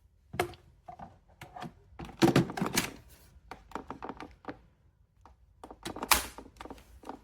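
A run of irregular clicks and knocks, clustered about two seconds in and again near six seconds.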